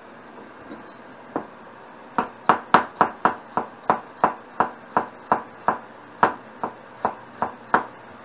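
Kitchen knife slicing a carrot on a wooden cutting board: one knock, then a steady run of knife strokes hitting the board, about three a second.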